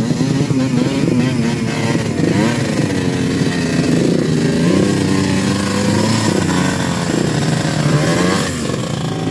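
Motorcycle engine running under load, its revs rising and falling again and again as the throttle is worked.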